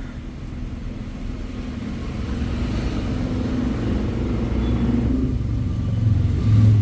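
Low engine rumble of a motor vehicle, building steadily and loudest near the end.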